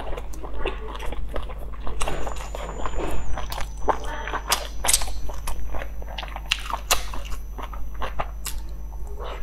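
A person biting into and chewing soft steamed dumplings close to the microphone, with many irregular sharp mouth clicks and smacks.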